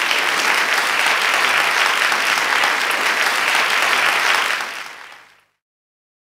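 Crowd applause, steady clapping that fades away over about a second from roughly four seconds in.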